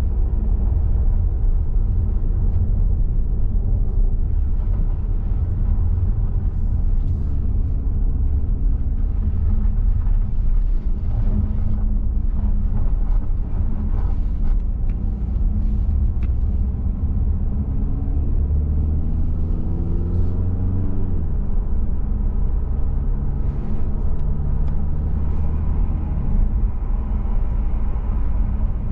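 Car engine and road rumble while driving uphill. The engine note climbs steadily for about four seconds past the middle, then drops suddenly, as at a gear change.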